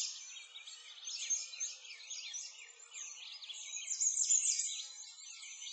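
A dense chorus of small songbirds chirping and twittering, many quick high chirps and short whistled sweeps overlapping.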